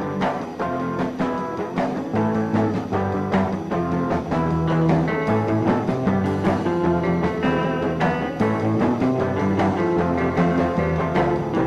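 Music with drums and held instrumental notes, playing steadily throughout.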